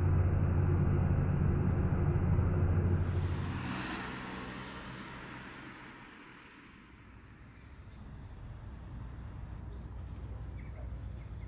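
A vehicle engine running with a steady low hum that stops about three and a half seconds in. A brief rush of noise follows and fades away, leaving a quieter low rumble.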